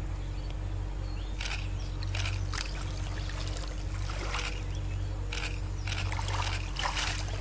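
Water splashing and sloshing in a shallow river as a large crocodile moves and lunges up out of the water toward meat held over it, in irregular bursts that come thickest near the end. A steady low hum runs underneath.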